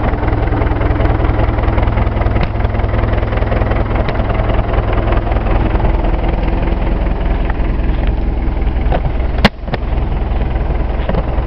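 Case 530CK backhoe's four-cylinder diesel engine running steadily at idle. A single sharp knock sounds about nine and a half seconds in.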